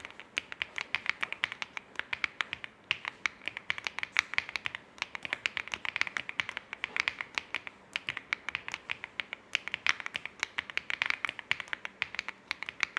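Typing on a WOB Rainy 75 aluminium, gasket-mounted mechanical keyboard with linear switches: fast, steady keystrokes in runs, with brief pauses about three, five, eight and nine and a half seconds in.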